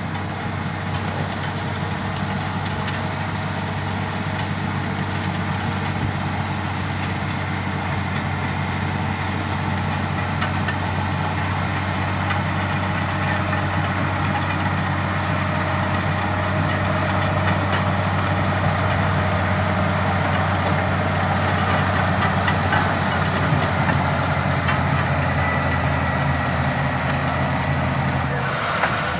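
Caterpillar D6H LGP bulldozer's diesel engine running steadily, its note growing slowly louder.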